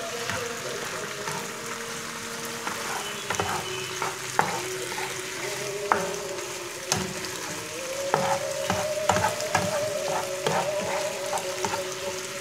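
Chicken shawarma strips with onion and pepper sizzling as they fry in oil, browning now that their cooking water has dried off. A spatula stirs and scrapes them, with frequent clicks and knocks against the pan, busiest in the second half.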